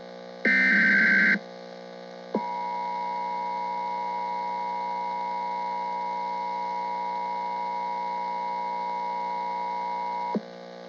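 Emergency Alert System alert opening: a short burst of warbling digital header data about half a second in, then a steady single-pitch attention tone held for about eight seconds that cuts off abruptly, over a constant electrical hum.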